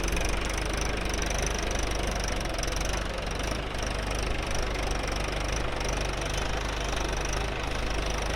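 Mahindra 575 DI tractor's diesel engine running steadily as the tractor is driven.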